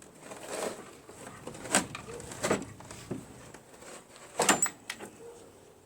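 A few sharp clacks and knocks with some scraping as hard parts of the snowblower's carburetor are handled and set down, the loudest about a second and a half in and again about four and a half seconds in.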